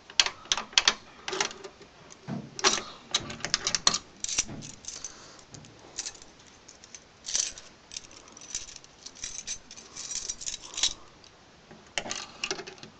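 A ring of try-out keys jangling, with irregular metallic clicks and scrapes as a key is turned and rocked in a 3-lever lock, catching on the levers without opening it.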